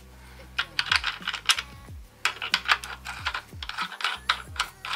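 Small metal clicks and clinks, irregular and in quick clusters, as a washer and axle nut are fitted by hand onto an electric scooter's hub-motor axle.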